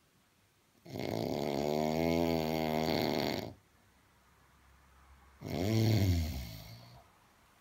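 A man snoring in his throat while passed out drunk: a long snore of nearly three seconds about a second in, then a shorter, louder snore about five and a half seconds in.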